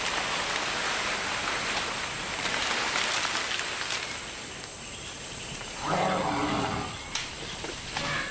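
Rustling noise for the first few seconds, then about six seconds in a Bornean elephant gives a short, low-pitched call lasting about a second, over a steady high insect drone.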